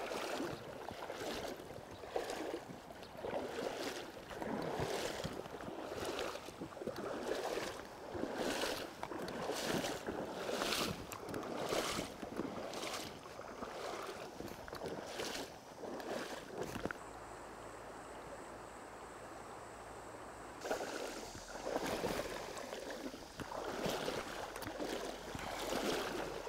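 Legs in waders sloshing through shallow river water, a splash with each stride about once a second. The strides pause for a few seconds past the middle, leaving only a steady faint hiss.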